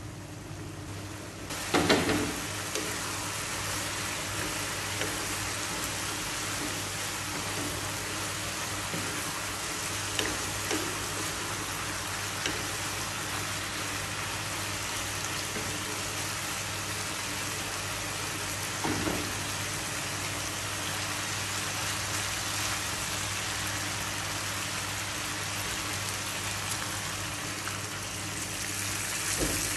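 Pork meat and intestines sizzling steadily as they fry in a nonstick pan, stirred with a wooden spatula, with a few short knocks of the spatula against the pan. Near the end a liquid is poured in from a bowl and the sizzle grows louder.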